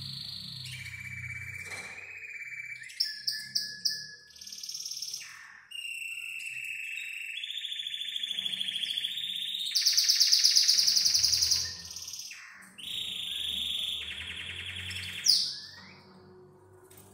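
Canary singing a long song of rapid trills and rolls, each held for a second or more before jumping to a new pitch, with four short sharp notes about three seconds in and the loudest, highest roll about ten seconds in.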